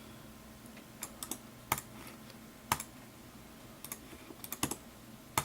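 Scattered, irregular clicks of a computer keyboard and mouse, about a dozen in all, several bunched together near the end, over a faint steady low hum.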